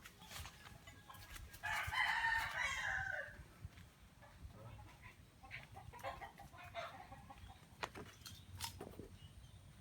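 A rooster crowing once, a loud call of about a second and a half near the start, followed by a few faint clicks.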